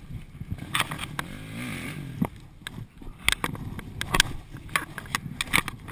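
Dirt bike engine running at low revs with a brief rise and fall in pitch, among repeated sharp knocks and scrapes as the stuck bike is handled on the slope.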